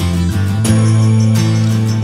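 Background music: an instrumental track led by acoustic guitar, with sustained notes and a steady beat.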